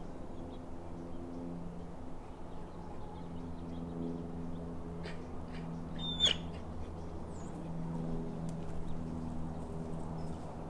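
Bird chirps over a steady low hum. A sharp, louder chirp comes about six seconds in, and a few fainter high chirps are scattered around it.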